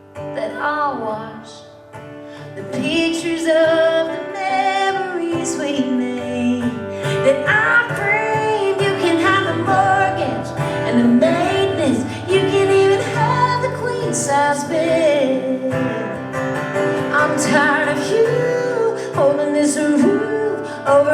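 Country song: a woman singing over acoustic guitar, quiet for the first couple of seconds and then full.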